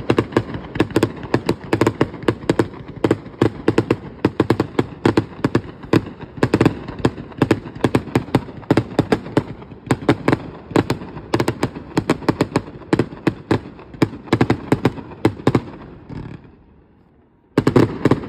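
Fireworks display: a rapid volley of bangs, several a second, dying away about three-quarters of the way through, then a short last cluster of bangs near the end.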